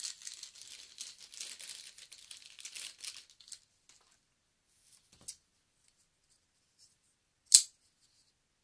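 Crinkly rustling handling noise for about three and a half seconds as a Kershaw Compound folding knife is handled, then a small click and, near the end, one loud sharp click.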